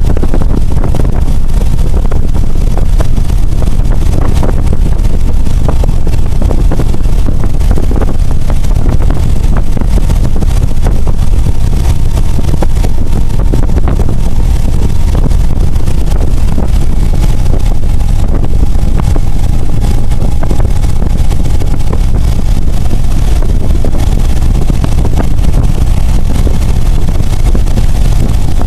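Motorcycle cruising at a steady speed: engine running under loud, low wind rumble on the microphone.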